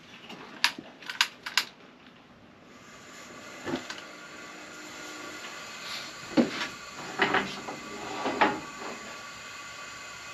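Gas stove burner being lit: about four quick igniter clicks, then the propane burner catches and hisses steadily, with a few louder knocks over it.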